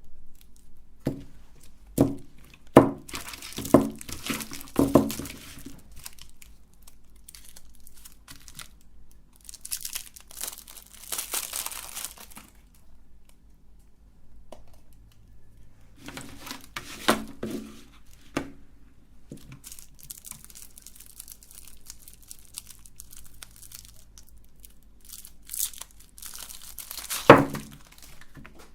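Crinkling and tearing of the plastic wrappers on big lollipops, in stretches, with sharp knocks and clicks in between; the loudest click comes near the end.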